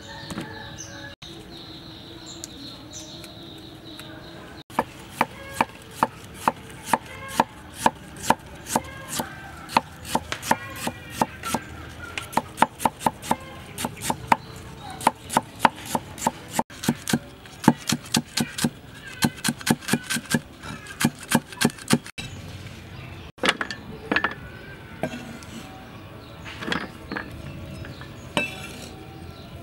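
Kitchen knife slicing fresh ginger root on a cutting board: a steady run of quick chopping strokes, several a second, starting about five seconds in and lasting some twenty seconds, then a few scattered strokes.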